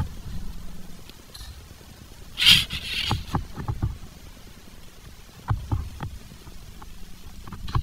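Hand tools and metal parts clicking, knocking and scraping during work on a dirt bike's brake pedal, with a louder scraping rustle about two and a half seconds in and a few sharp knocks later on.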